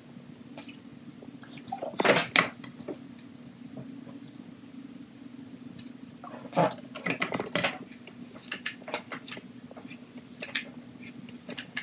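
Short clicks and rattles of a flat iron being handled and clamped through hair, in clusters about two seconds in, around the middle, and near the end, over a steady low hum.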